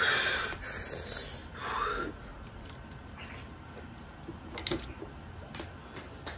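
A man breathing hard and snorting, his mouth burning from an extremely hot chili chip: a loud sharp breath at the start and another about two seconds in, then quieter breathing with a few small clicks near the end.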